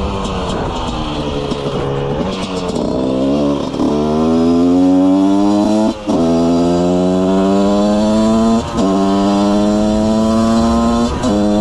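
Husqvarna CR125 two-stroke 125 cc motorcycle engine accelerating hard. Its pitch wavers at first, then climbs in long pulls broken three times by a brief drop in sound as it shifts up a gear.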